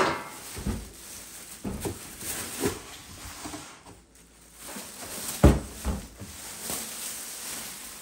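Plastic bag crinkling and a cardboard box scraping as a bagged toaster oven is pulled out of its shipping box, with several knocks and one heavier thump a little past halfway.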